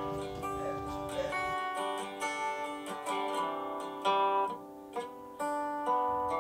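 Background music: a plucked string instrument, guitar-like, playing a melody of ringing notes.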